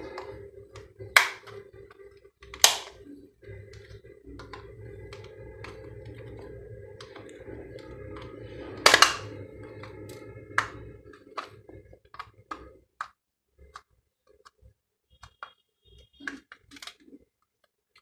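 Plastic snap-fit clips of a TV remote control's case cracking loose as the case is pried open with a small screwdriver. There are sharp snaps about a second in, near three seconds and, loudest, near nine seconds, then a run of lighter plastic clicks and taps as the halves are worked apart.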